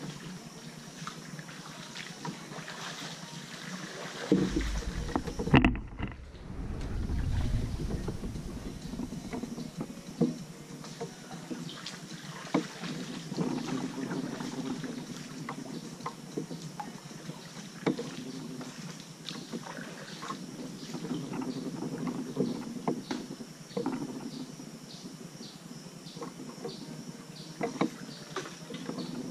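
Kayak paddling: paddle strokes in the water with scattered knocks and drips. There is a gust of wind on the microphone about four seconds in.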